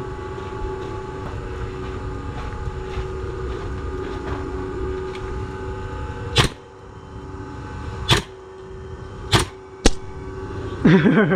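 Four sharp single shots from an airsoft gun, spaced unevenly over the last few seconds, over a steady low hum.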